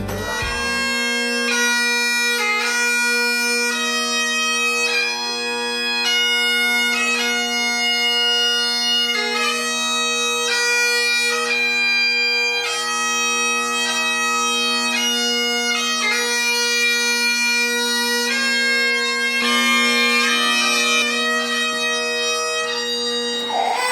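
Bagpipes playing a tune: a melody moving note to note over steady, unbroken drones.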